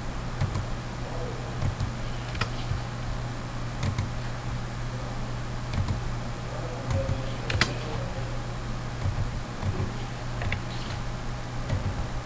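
Irregular computer mouse and keyboard clicks, one every second or so, over a steady low hum.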